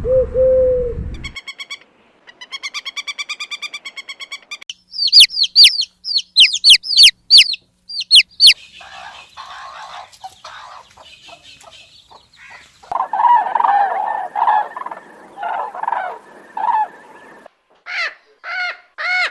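A string of different birds' calls one after another: the tail of a turkey's gobble, a fast rattling call, a run of eight or so loud, high calls each falling in pitch, a stretch of hens clucking, and near the end the first harsh caws of a crow.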